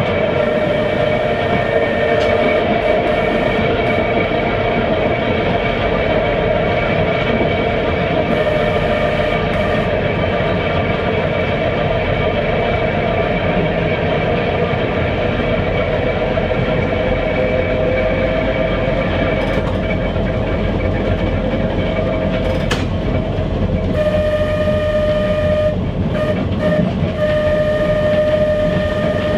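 Interior of a Manx Electric Railway electric tramcar, Vestibuled Saloon No. 6, running along the line: a steady whine from the traction motors and gearing over a continuous wheel-on-rail rumble. There is one sharp click about 23 seconds in. Near the end the whine steadies and cuts out briefly a few times.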